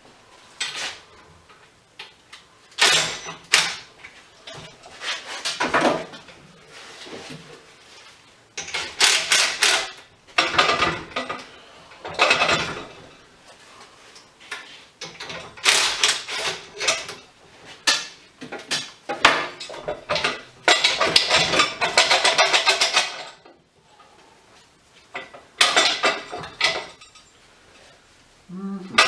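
Metal parts and hand tools of a hydraulic strut spring compressor clinking and rattling in bursts as it is assembled, with a few quick dense runs of rattling.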